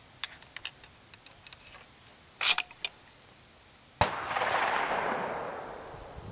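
Light metallic clicks and a brief sharp clatter, then about four seconds in a single gunshot whose echo rolls away and fades over about two seconds.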